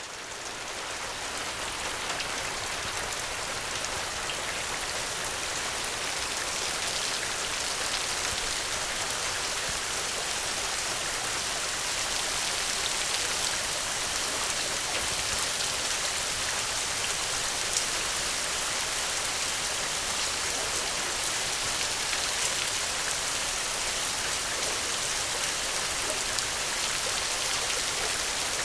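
Steady gentle rain: an even hiss of falling rain with fine pattering drops, fading up over the first couple of seconds.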